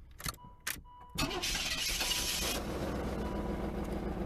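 Car engine cranking and catching about a second in after a couple of clicks, with a short rush of hiss, then running steadily at idle. The car had run out of gas from idling, which the owner put down to fuel.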